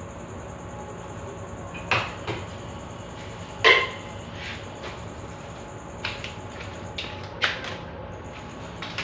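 A few sharp knocks and clatters spaced irregularly, the loudest just under four seconds in, over a steady background hiss.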